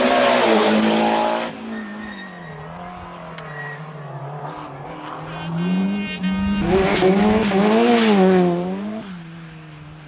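Two rally cars going through a corner at speed. The first is loud at the start and fades within about a second and a half; the second comes in about six seconds later, its engine revving up and dropping several times through gear changes, and recedes near the end.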